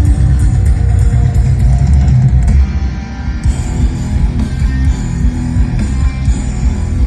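Rock band playing loud with electric guitar, bass and drums. The full sound drops back briefly about three seconds in before the guitar comes back in.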